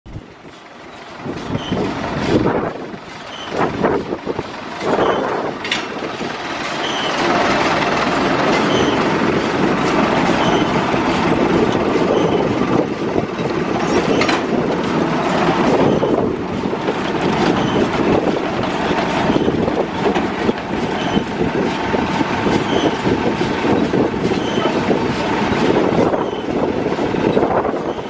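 1981 New Holland 851 round baler running on a tractor's PTO, its chains and rollers rattling. After a few knocks at the start it settles into a steady clatter with a faint squeak about once a second.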